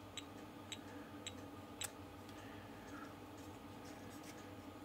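NV17 measuring tweezers ticking from their beeper about twice a second while the tips are on a component, stopping after about a second and a half; then a single sharper click as the tips are moved on the board, over a faint steady hum.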